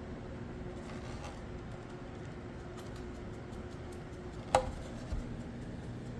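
A single sharp wooden knock about four and a half seconds in, with a brief ring, then a softer low thump, as a turned black cherry platter is handled on a hard surface over a steady low hum.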